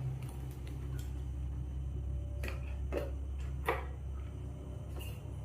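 A Vega helmet and its packaging being handled: a few short clicks and scrapes, the three loudest close together in the middle, over a steady low hum.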